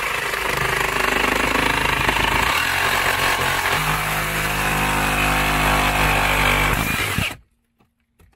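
Reciprocating saw running steadily as its blade cuts through a rusty steel rod that passes through the wooden framing. The saw stops suddenly about seven seconds in.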